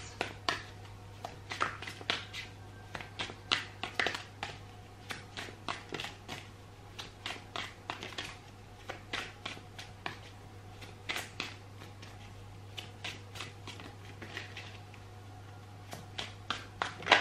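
Tarot deck being shuffled by hand: a run of short, irregular card flicks and snaps, thinning out in the last few seconds, over a faint steady hum.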